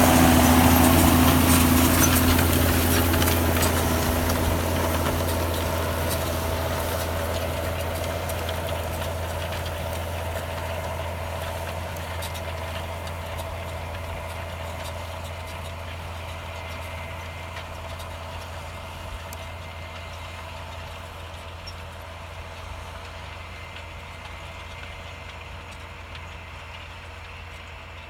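John Deere 6930 tractor's six-cylinder diesel engine running steadily while pulling a five-furrow plough, fading steadily as the tractor moves away.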